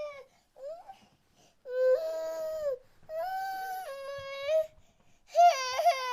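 Infant crying in a run of drawn-out wails about a second long each, with short breaths between them; a brief rising yelp comes about a second in.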